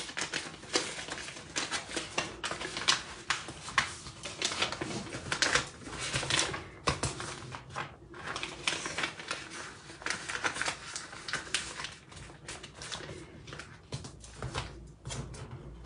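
Hand-painted paper crinkling and rustling as it is folded and pressed around a paper-wrapped gift box, with irregular crackles and taps from hands on the paper, thinning out toward the end.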